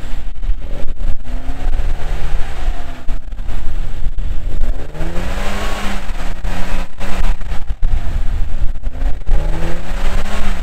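Classic Mini's A-series engine revving up and down in slow swells, three or four times, as a theremin, through a servo on the throttle cable, opens and closes the throttle. Wind buffets the microphone.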